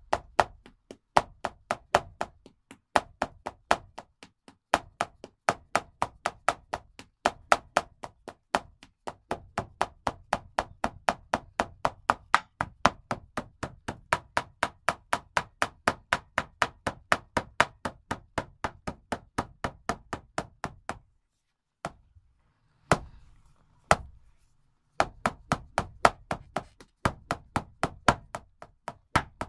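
Shaman drum beaten in a steady pulse of about four strokes a second, in phrases with short breaks. About three quarters of the way through the beating stops for a few seconds, broken by two lone strokes, then picks up again.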